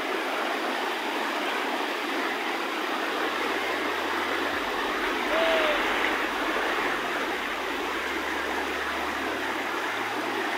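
Fast-flowing river churning over rapids: a steady rush of water. A single short falling chirp is heard about five seconds in.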